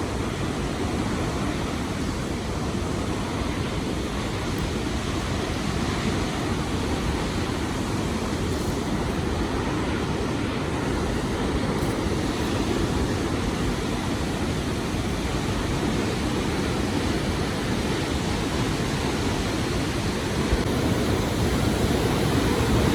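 Steady rush of fast-flowing water from a waterfall and mountain river, a constant deep roar without breaks.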